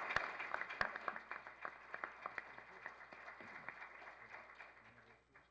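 Audience applauding, loudest at the start and thinning to scattered claps before dying away near the end.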